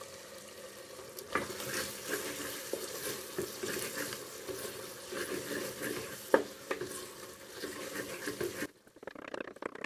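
A spoon stirring and scraping through thick potato curry in a hot metal pot, with a hiss under it and a few sharp knocks against the pot, the loudest about six seconds in. The sound stops abruptly near the end.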